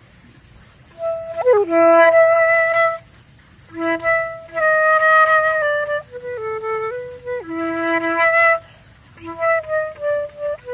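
Solo flute played freely in slow phrases of held notes, sliding down into a low note about a second and a half in, with short breaths between phrases.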